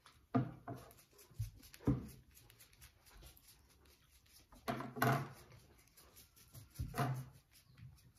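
A spice container being shaken and knocked over a whole fish as seasoning is sprinkled on: four short clattering shakes and knocks spaced a second or two apart.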